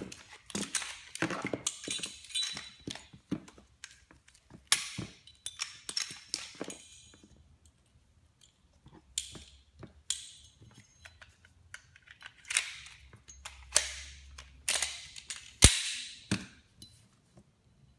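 Glock 19 and Glock 17 pistols being detail-stripped by hand: a quick, irregular run of clicks, clacks and short sliding scrapes of steel and polymer parts, with a sharp snap near the end.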